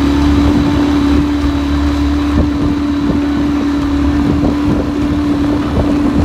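40-horsepower outboard motor running steadily at speed, driving a small boat across the water: an even, unbroken engine hum with no change in pitch.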